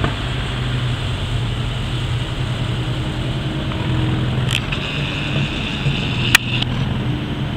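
Steady motor vehicle rumble with a low engine hum. About four and a half seconds in, a camera's zoom or focus motor whirs for about two seconds, with one sharp click just before it stops.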